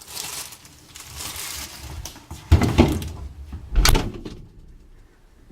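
Rustling, then two dull thumps about a second and a half apart as a refrigerator door is shut.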